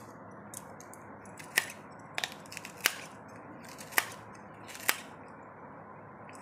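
Plastic squeeze-handle vegetable cutter snapping shut on okra pods: a series of sharp clicks, about one a second, starting around one and a half seconds in.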